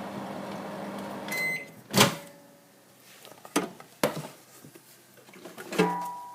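Microwave oven running with a steady hum that stops about a second in with a short beep, then a loud clack about two seconds in, as of the door being opened, followed by a few lighter knocks and clatters.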